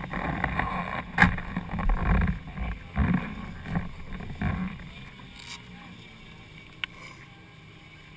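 Wind buffeting the camera microphone in irregular low gusts, with a sharp knock about a second in. It settles to a quieter steady background about five seconds in, with one more small click later.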